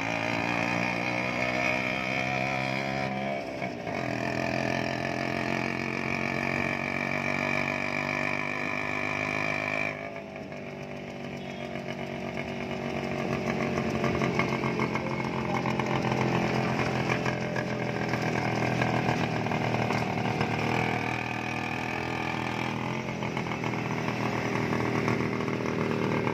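Small vehicle engines running in road traffic, close and buzzing, the engine note shifting in pitch as the speed changes.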